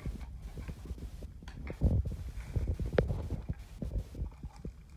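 Handling noise as small plastic toys and the recording phone are moved about: irregular low bumps and knocks, with one sharp click about three seconds in.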